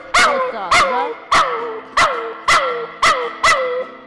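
Pomeranian barking repeatedly in high, yappy barks, about two a second, each dropping in pitch.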